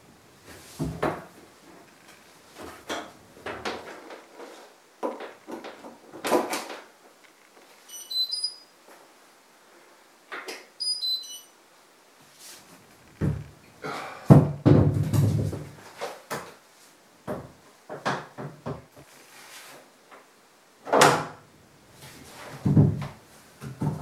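Irregular knocks, clunks and rattles of a washing machine and its fittings being handled and shifted in a small room, with a louder low rumble lasting a couple of seconds about halfway through. A few short high chirps sound twice, about a third of the way in.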